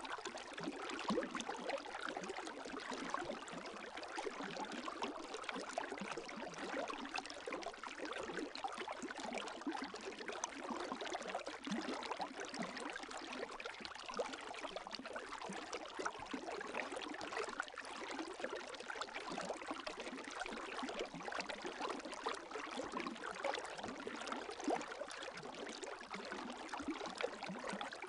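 Gentle lake waves: a steady wash of many small splashes and trickles, even throughout with no large surges.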